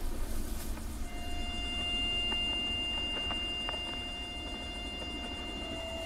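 Film soundtrack ambience: a low steady rumble like desert wind, with a thin, high held tone coming in about a second in and sustained, and a few faint ticks.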